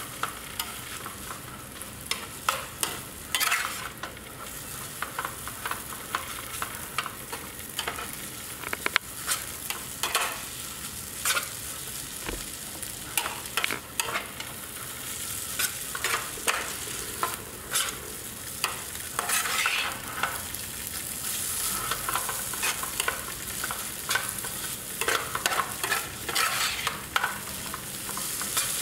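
Noodles in sauce sizzling in a hot nonstick frying pan while a spatula stirs and tosses them, with irregular scrapes and clicks of the spatula against the pan over a steady frying hiss.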